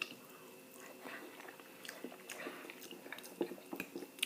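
Close-miked chewing and mouth sounds of a person eating, with scattered soft smacks and clicks and one sharper click near the end.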